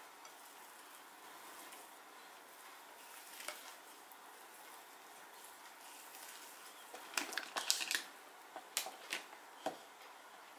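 Silicone spatula pressing and folding soft cocoa butter-cookie dough against a glass bowl: faint squishing, with a few sharper scrapes and taps in the second half as the dough is scooped out.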